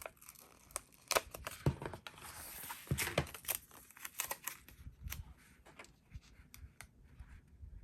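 Paper sticker being peeled off its backing sheet and handled: a crackling, tearing rasp about two to three seconds in, among scattered small clicks and crinkles of paper.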